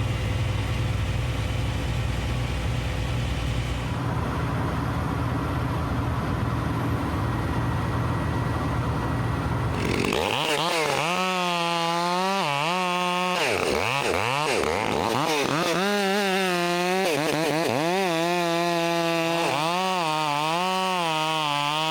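A steady engine drone, then from about halfway a chainsaw at full throttle cutting into wood, its pitch repeatedly dipping and recovering as the chain loads up in the cut.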